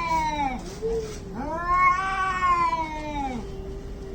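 Two cats yowling at each other in a standoff: long, drawn-out wails that rise and fall, one low voice and one higher voice overlapping, the higher one holding a long call through the middle. Typical of angry cats threatening before a fight.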